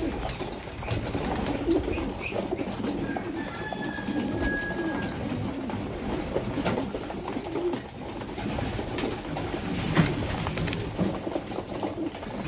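Pigeons cooing over and over, with another bird giving a run of short high calls in the first few seconds and a sharp click near the end.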